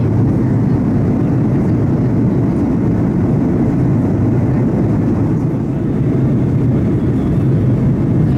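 Steady cabin noise of an Airbus A330-200 in flight: a constant low rumble of engines and airflow.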